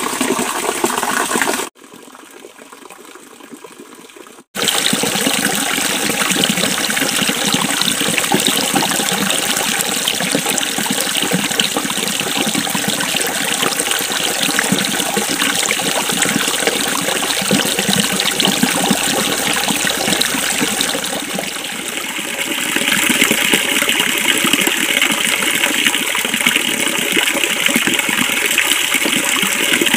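A small forest stream running with a steady rush of water. It falls away for about three seconds near the start and comes back a little louder after about twenty-two seconds.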